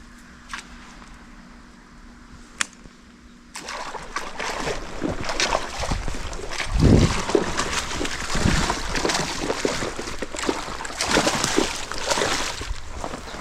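Water splashing and sloshing, starting about three and a half seconds in after a quieter stretch with two sharp clicks, with irregular surges, the loudest about seven seconds in.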